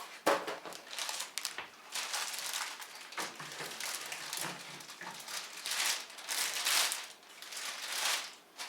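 Plastic wrapping rustling and crinkling in repeated bursts as it is pulled off the vacuum's caster base, with a sharp knock just after the start.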